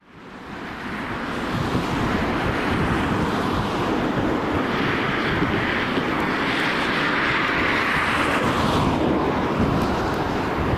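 Freight train running past, fading in from silence: a steady rumble and rushing noise of the train on the track, with wind on the microphone. The noise swells in the middle and eases a little near the end.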